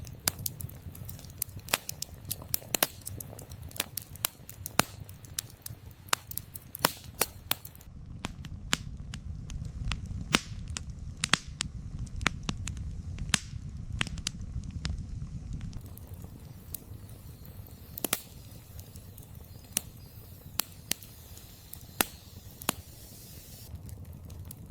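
Wood campfire crackling, with frequent irregular sharp pops of burning logs over a low steady rumble.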